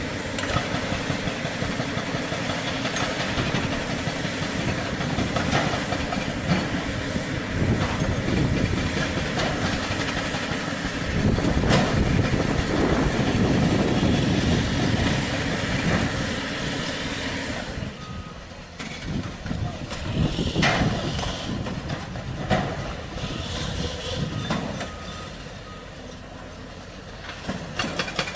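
Heavy diesel machinery at rock-breaking work: an excavator with a hydraulic breaker, engine running, with a rapid clatter of knocks against stone. About two-thirds of the way through it eases to a quieter engine with a few separate knocks, then builds again near the end.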